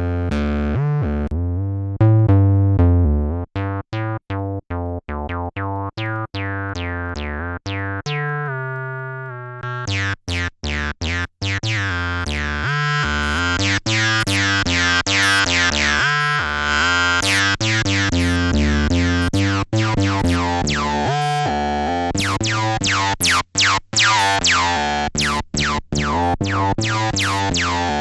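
Behringer TD-3 bass synthesizer playing a sequenced acid bassline of short, separated notes through its resonant filter. A held note slides down in pitch about eight seconds in. From about ten seconds in the filter opens up: the notes turn much brighter, and each one sweeps down in tone as it dies away.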